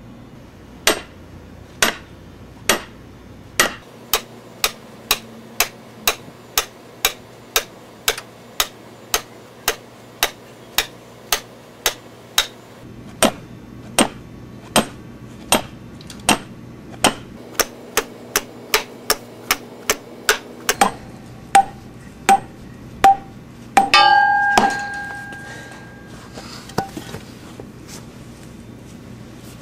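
Sledgehammer striking an 8-foot copper ground rod through a 2x4 guide board, driving it the last foot or so into the ground. The strikes come in quick runs of about two a second, with a short break about halfway. Near the end there is one louder clatter with a brief ringing.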